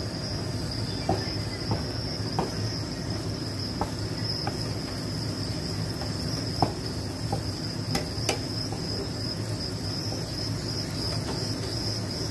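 Wooden spatula knocking and scraping in a steel pan while stiff millet dhido is stirred and pressed, giving irregular short knocks about once or twice a second. A steady high-pitched trill or whine runs underneath throughout.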